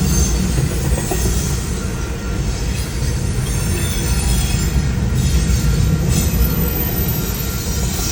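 Train cars rolling past on the rails: a steady, loud rumble with faint high wheel squeal over it.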